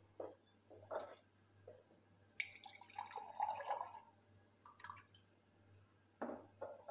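Water poured from a glass into a steel pan already holding water: faint trickling and dripping in a few short spells, with a longer splash about two and a half to four seconds in.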